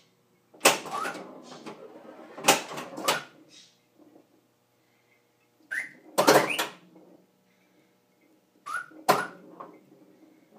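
Gottlieb System 80 pinball machine's sound board playing game sound effects: a handful of sharp electronic hits, some with a short falling tone, a couple of seconds apart with quiet gaps between.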